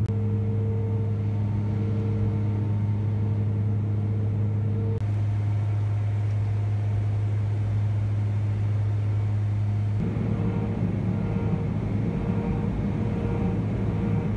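Passenger airliner cabin noise: a steady engine drone with a strong low hum, shifting abruptly twice, about five and ten seconds in.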